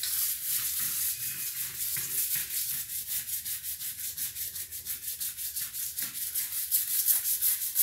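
Handheld scrub brush scrubbing back and forth over wet ceramic floor tiles, spreading oxalic acid cleaner. Quick, even strokes, about four or five a second in the second half.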